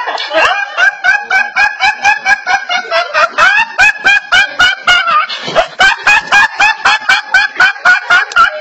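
A teenage boy's high-pitched, uncontrollable laughter: rapid repeated bursts, about five a second, with a short catch of breath about five seconds in.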